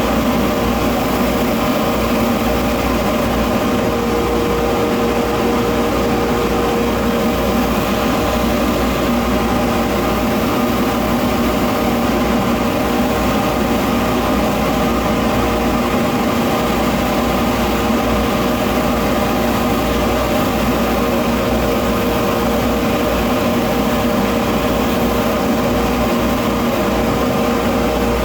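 Electric polishing or buffing machine motor running steadily, a constant hum with one clear steady tone.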